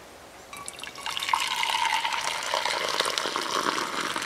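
A drink poured in a thin stream from a metal pot into a metal mug, the trickle starting about a second in and running on steadily with a faint ringing tone from the filling mug.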